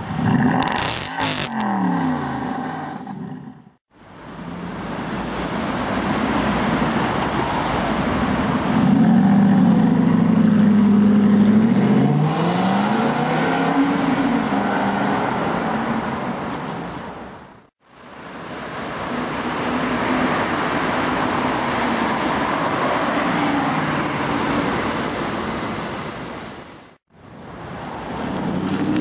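Aston Martin V8 Vantage S Roadster's 4.7-litre V8 exhaust, loud, first revved in quick blips and then accelerating away, its pitch climbing and dropping through the gear changes. The sound breaks off into silence twice where separate shots are joined.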